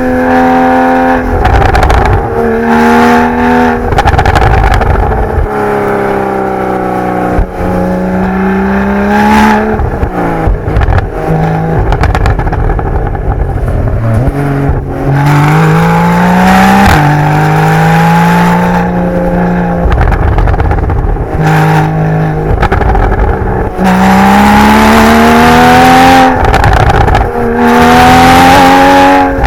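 Porsche 981 Boxster GTS's naturally aspirated 3.4-litre flat-six through its stock sport exhaust, revving hard at high rpm: the pitch climbs through the gears again and again, with short breaks at each upshift and drops as the driver lifts off and shifts down.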